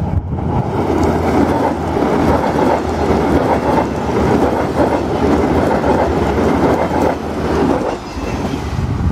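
SNCF X 72500 diesel railcars passing close by at speed: a loud, steady rush of wheel and running noise with a clickety-clack of wheels over the rails, easing off about eight seconds in as the train goes by.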